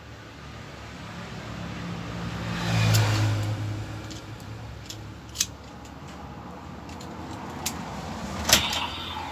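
DX Gavv transformation belt toy playing its electronic sound effects through its small speaker: a low hum that swells to a peak about three seconds in and fades. Sharp plastic clicks from the belt's mechanism come later, the loudest about eight and a half seconds in.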